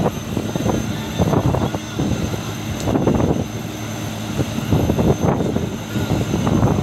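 A fishing boat's engine running steadily with a constant drone, under irregular bumps and thuds of crew working through a deck load of fish.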